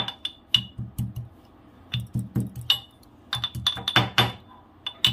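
Steel pestle pounding green cardamom pods in a steel mortar (imam dasta): sharp metallic strikes with a brief ring, coming in irregular runs of a few blows with short pauses, crushing the pods coarsely.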